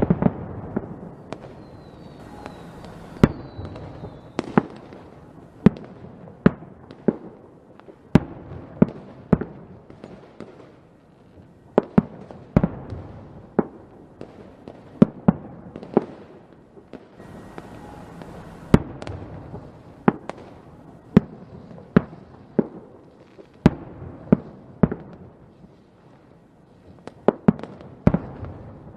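Fireworks going off: sharp bangs of bursting shells at irregular intervals, about one or two a second, with crackling and rumble between them. A faint falling whistle comes in the first few seconds.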